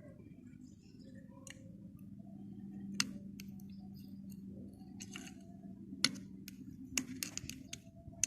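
Scattered light clicks and taps of hand work on small parts, the sharpest about three, six and seven seconds in, over a faint steady hum.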